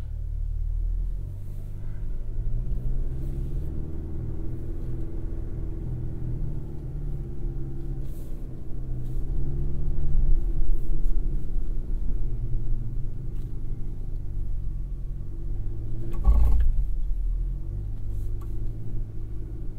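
Cabin sound of a GMC Canyon AT4X AEV crawling off-road in four-low: its high-output 2.7-litre turbocharged inline-four running at low revs as a low rumble, its pitch rising and falling gently and swelling about halfway through. A single thump near the end.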